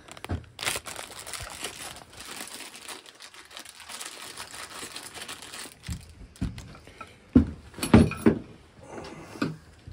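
Plastic bag of metal clamp connectors crinkling and rustling as it is handled. In the last few seconds come several sharp knocks and clunks.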